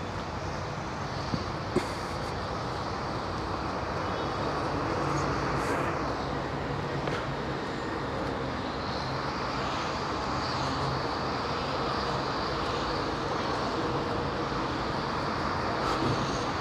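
Steady city traffic noise, a constant hum of vehicles, with two short clicks about a second and a half in.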